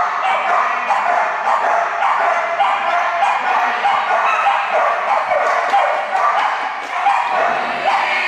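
Many dogs barking and yipping at once in a steady, overlapping chorus, the excited barking of flyball dogs during a race.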